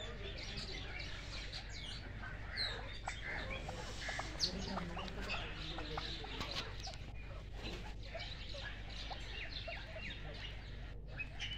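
Pheasants clucking softly amid many short bird chirps, over a steady low hum.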